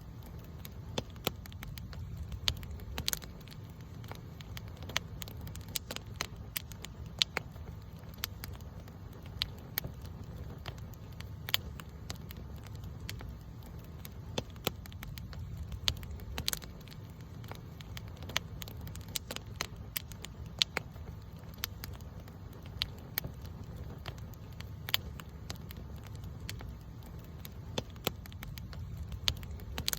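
Wood campfire burning, with sharp crackles and pops at irregular intervals over a steady low rumble.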